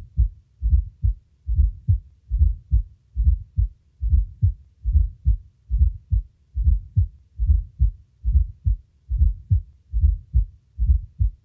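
Recorded heart sounds with a fourth heart sound (S4, atrial gallop): a soft, low extra sound just before each first heart sound, then the second sound, in a steady rhythm of low thuds. The S4 comes from atrial contraction into a ventricle of decreased compliance or increased diastolic volume.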